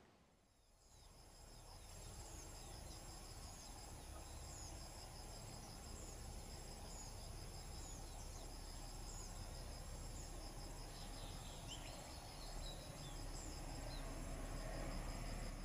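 Insects trilling steadily: one high, even buzz and a faster pulsing trill just below it, with short high chirps scattered throughout.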